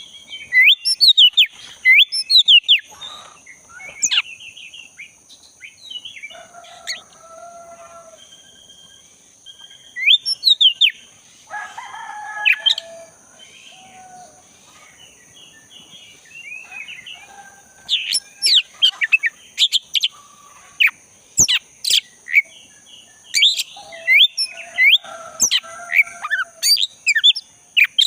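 Oriental magpie-robin (black-breasted kacer) singing in loud, rapid bursts of sweeping whistled notes, with quieter stretches between bursts. Lower warbled bird calls come in between, over a steady high-pitched drone.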